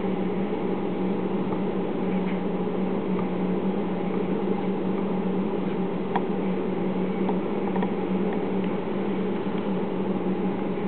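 Steady electrical hum from a powered servo motor and its drive under field-oriented control, with one strong low tone. The motor is energised but not turning. A couple of faint clicks come through as the shaft's encoder knob is turned by hand.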